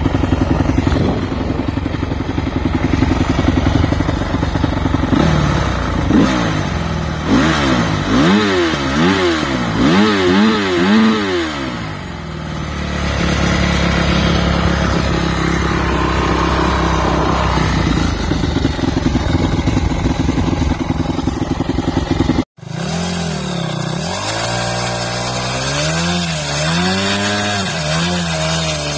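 Dirt bike engine idling and being revved in repeated quick throttle blips, its pitch rising and falling with each blip, then settling to a steadier run. The sound cuts out for an instant about three-quarters of the way through, then the revving and idling carry on.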